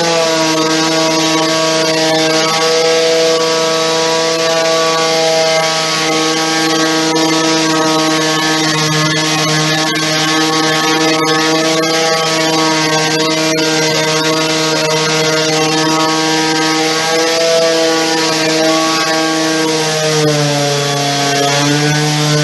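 Electric power sander running steadily under load, taking paint and filler off a wooden (MDF) repair. Its pitch begins to drop near the end as it is switched off.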